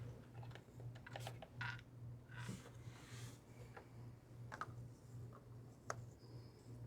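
Faint clicks and light plastic handling of a five-quart motor-oil jug while engine oil is being added, with a short soft hiss about halfway through, over a steady low electrical hum.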